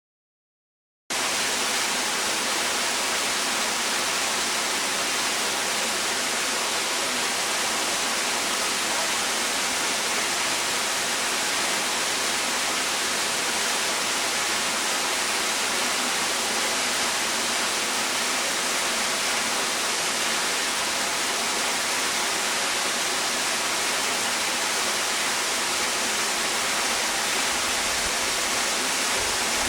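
Waterfall rushing, a steady hiss of falling water and spray that cuts in suddenly about a second in and holds unchanged.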